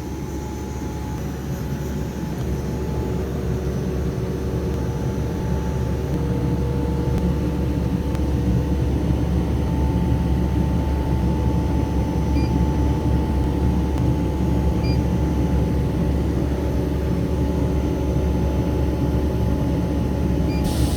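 A large machine running steadily: a low rumbling drone with a faint steady whine over it, building up in level over the first several seconds and then holding, with a burst of hiss at the very end.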